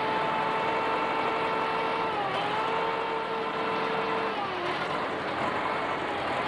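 Crawler bulldozer's diesel engine running with a steady whine over a rumble. The pitch sags briefly about two seconds in and again around four and a half seconds in, as the engine takes load pushing sand.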